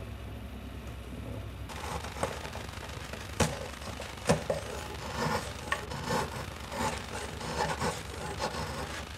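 Hand tool scraping and cutting wood in short, irregular strokes, with a couple of sharp clicks.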